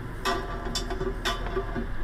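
Steady ticking, about two ticks a second, over a low hum inside a car's cabin.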